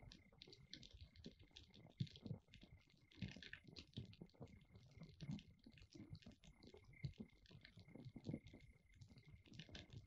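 Near silence: faint, irregular clicks and crackle over a thin, steady high tone.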